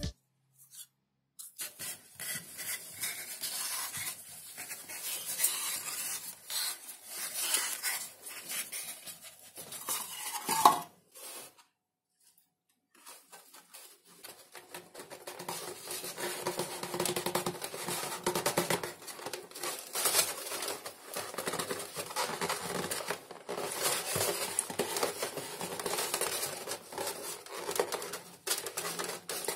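Hands bending and fitting thin XPS foam (Depron) sheets, the foam rubbing and crackling against itself in irregular bursts. One short rising squeak about a third of the way in, then a couple of seconds of silence before the handling resumes.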